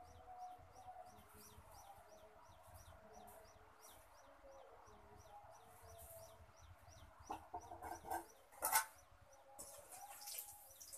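Chickens clucking, with steady high peeping of chicks at about three peeps a second. Near the end come a few sharp knocks of a metal ladle against the iron kadai, one much louder than the rest.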